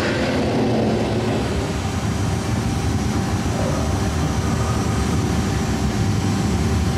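Steady, loud rumble of a motion-base dark-ride vehicle pulling away into a dark tunnel, with a faint steady hum over it.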